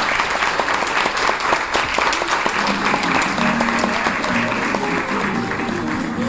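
Audience clapping steadily and densely. Guitar-led music comes in under the applause about two and a half seconds in.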